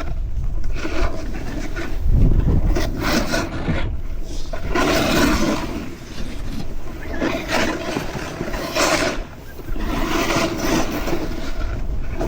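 Snowboard edges carving and scraping over packed snow, the rasp swelling and fading with each turn every second or two, over low wind rumble on the microphone.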